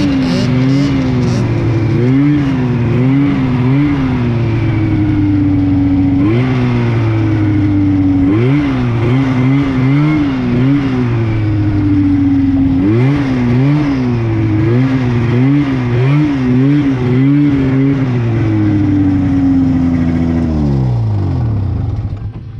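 Vintage Yamaha two-stroke snowmobile engine, heard from the rider's seat, running at low speed with the throttle blipped up and down over and over and a few longer pulls that slowly fall back. Near the end the revs drop away as the engine winds down.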